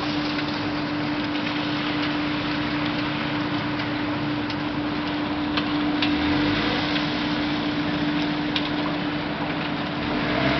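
Steady rain hiss with a constant machine hum underneath and a few sharp ticks scattered through.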